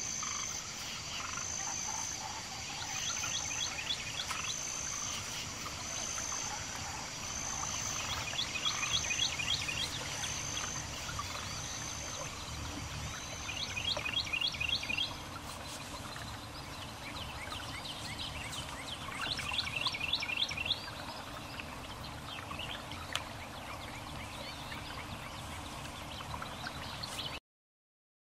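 Pond ambience of frogs calling: rattling trains of rapid croaks, each a second or so long, coming every few seconds over a steady outdoor hiss. A high, short note repeats about once a second through the first half, and everything cuts off abruptly near the end.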